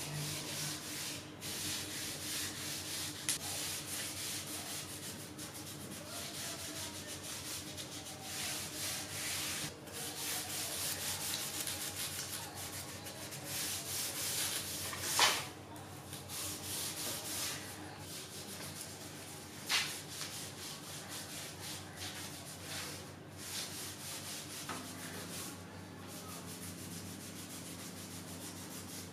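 Bare hands rubbing a brown paste over wood: a continuous rasping swish of irregular strokes across ribbed dowels and a flat wooden top. Two sharp knocks come about 15 and 20 seconds in, over a faint steady hum.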